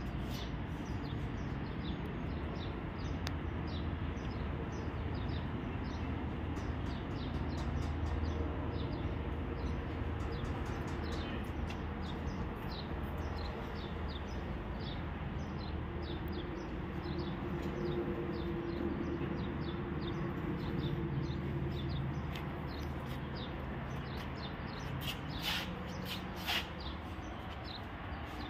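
Small birds chirping on and off over a steady low hum, with two louder sharp sounds near the end.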